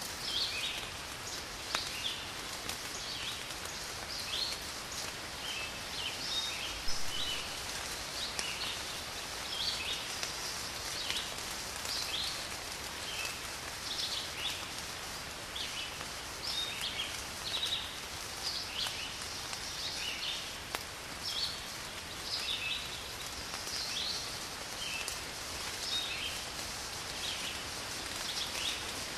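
Outdoor nature ambience: a steady hiss with many short, high chirps scattered throughout.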